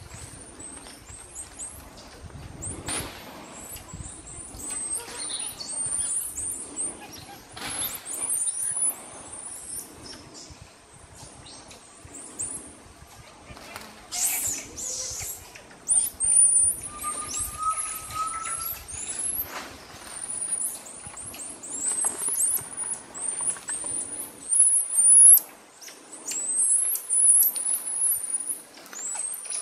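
A troop of Bolivian squirrel monkeys giving a steady stream of short, very high-pitched chirps and peeps, with bursts of leaf and branch rustling as they move through the treetop.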